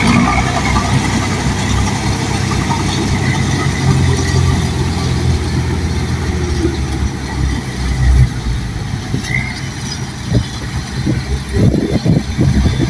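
Bulldozer's diesel engine running steadily at a low pitch, with a few clanks near the end.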